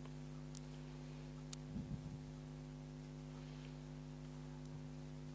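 Steady low electrical hum, with a few faint clicks.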